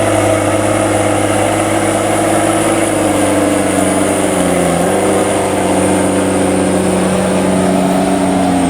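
Cummins diesel engine of a JCB Fastrac 7270 tractor running hard under load while it pulls a six-furrow plough. The engine note is steady, with a brief dip in pitch about four to five seconds in.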